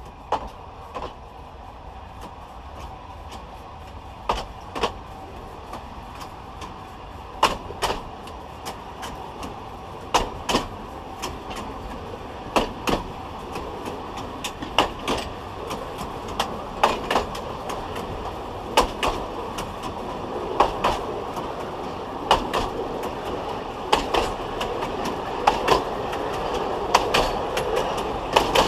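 Wheels of a narrow-gauge railway coach clicking over the rail joints, heard from under the running car: sharp clicks, mostly in close pairs, over a steady rolling rumble. The clicks come closer together and the rumble grows louder as the train gathers speed.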